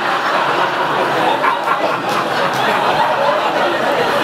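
A live audience laughing together, a steady, full wash of crowd laughter in response to a joke.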